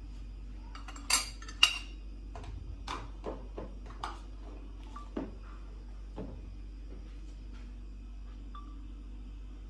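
Kitchen dishes and utensils clinking and knocking: two sharp clinks about a second in, then a string of lighter clinks and knocks that stop about six seconds in.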